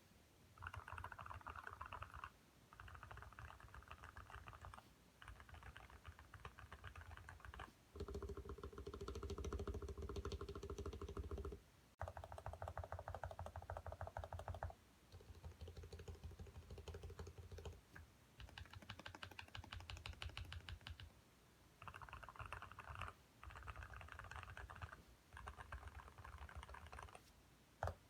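Fast typing on a computer keyboard in about ten runs of a couple of seconds each, with short pauses between them. The keys make a hard clack likened to marble. The pitch of the key sound shifts between runs, and one run partway through is louder and deeper.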